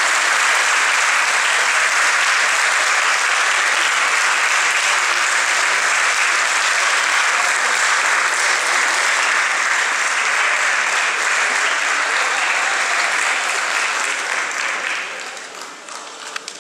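Concert-hall audience applauding steadily after the concerto. Near the end the applause dies away to scattered single claps.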